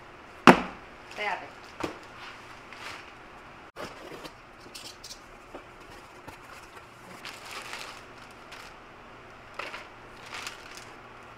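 A cardboard shoe box is set down with a thud on a wooden tabletop. Then come scattered soft rustles and knocks as the box is opened and clogs and a plastic bag are taken out.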